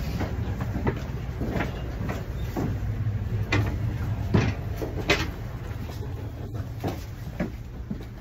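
Inside a moving passenger train carriage: a steady low rumble with irregular sharp clicks and knocks, the loudest a few seconds in.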